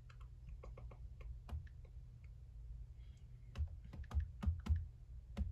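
Irregular light clicks and taps, a few sharper ones bunched near the end, over a faint steady low hum.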